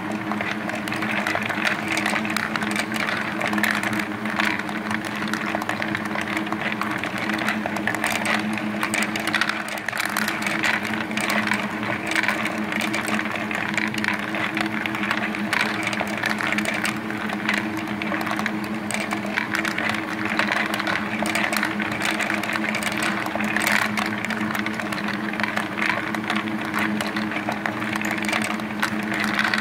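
Laser-cut wooden marble machine running: steel ball bearings rolling and clattering along the wooden tracks, ramps and lifts in a dense stream of small clicks, over a steady whir from its drive gears.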